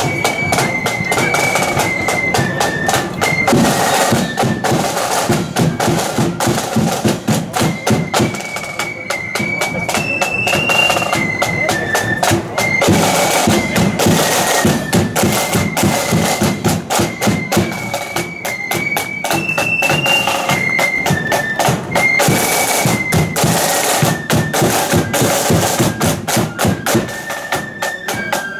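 Marching flute band playing a march: massed flutes carrying a high, stepping melody over side drums and bass drum beating a steady rhythm.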